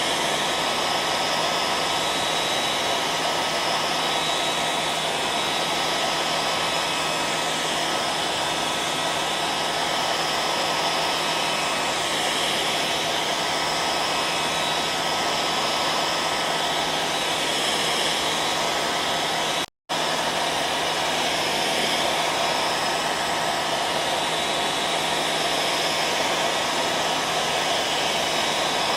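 Hair dryer running steadily: an even blowing rush with a fixed high whine and a low hum. It cuts out for an instant about two-thirds of the way through, then resumes unchanged.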